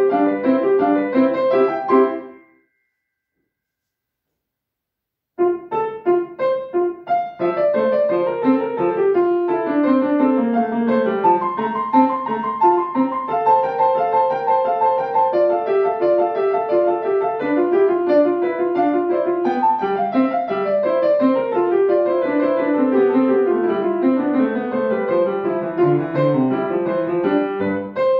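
Grand piano being played. The playing stops about two seconds in, and after about three seconds of complete silence it starts again with quick running notes.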